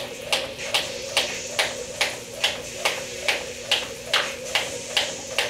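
Jump rope skipping: the rope slapping the floor together with light landings of sneakers, a steady rhythm of sharp slaps about two and a half times a second.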